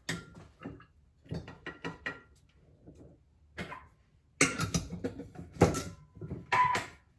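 Kitchen clatter of a scoop, containers and a bowl being handled as walnuts are scooped out: a run of knocks and rattles, some with a brief ring, loudest in the second half.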